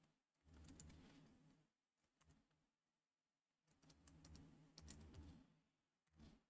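Computer keyboard being typed on, faintly: two short runs of keystrokes about three seconds apart, and a last few keys near the end.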